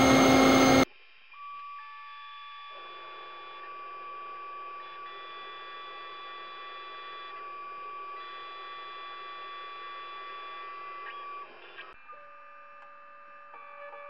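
CNC milling machine cutting metal, a loud steady whine that cuts off abruptly about a second in. After it come quieter steady tones that shift in pitch in steps.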